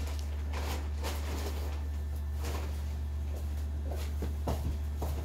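A steady low hum with scattered soft rustles and light taps.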